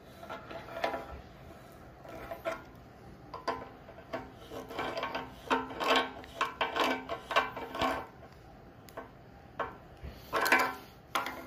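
Pliers cranking the nuts of braided stainless supply lines tight onto faucet shanks: a run of short, irregular scraping strokes of metal on metal, thickest in the middle and again near the end.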